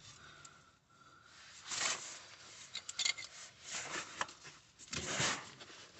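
Rubbing, rustling handling noise with a few light metallic clicks, in short swells about once a second: the new front driveshaft being turned by hand to line its inner CV joint up with the gearbox flange bolt holes.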